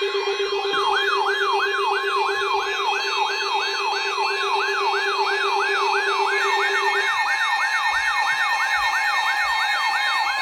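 Electronic siren in a fast yelp: a falling whoop repeating about three times a second over steady electronic tones. The lowest steady tone stops about two-thirds of the way through while the yelp carries on.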